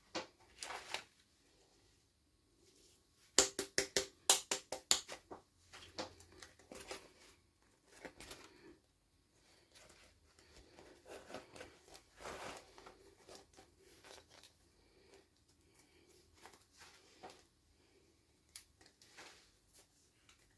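Hands opening and handling toy packaging: a quick run of sharp plastic clicks a few seconds in, then scattered taps, clicks and light crinkling.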